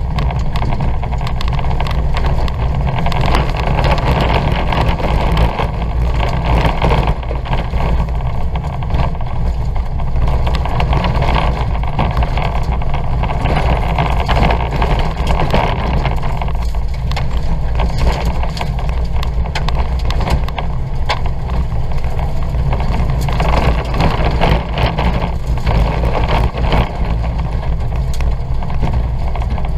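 Ford Fiesta 1.2's four-cylinder engine running hard under racing load, heard from inside the cabin, with frequent knocks and rattles as the car crosses the rough dirt track.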